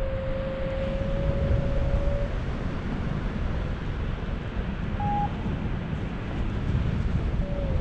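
Wind buffeting the microphone in flight, a steady low rumble, with a paragliding variometer sounding a long low tone for the first two seconds and one short higher beep about five seconds in.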